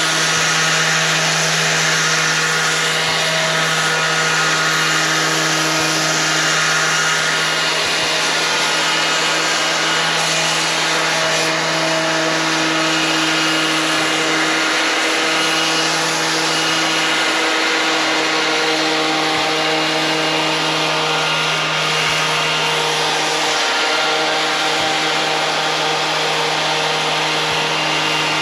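Electric power sander with 100-grit sandpaper running steadily against a cast-iron brake rotor face, resurfacing it to take off old pad compound before new pads go on. A steady motor hum with a grinding hiss over it, the hum dipping briefly a few times.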